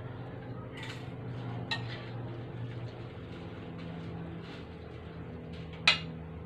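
A spoon scooping cooked vegetable pickle from a wok onto a plate: a few light clinks and scrapes, with one sharp, loud clink near the end, over a steady low hum.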